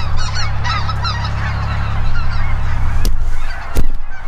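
A quad (ATV) engine running with a steady low drone in a nearby field, fading after about three seconds, under many short high chirping calls. Two sharp knocks come near the end.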